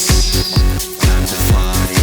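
Background music: an electronic dance track with a steady kick-drum beat, about two beats a second.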